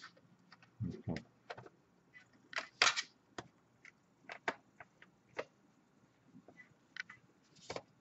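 Irregular small clicks, taps and scrapes of hand work on an Asus UX303U laptop's metal bottom cover with a small screwdriver during reassembly, with a couple of duller knocks about a second in.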